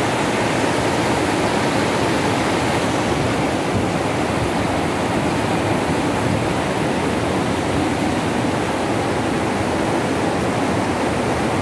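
Tidal river water rushing steadily through a sluice gate that has failed to close: a constant, even rush of fast-flowing water.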